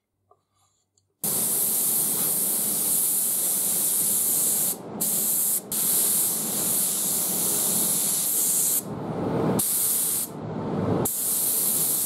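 Compressed-air paint spray gun hissing as it sprays paint, starting about a second in. The hiss cuts off briefly twice around five seconds in, and dips and turns duller twice near the end.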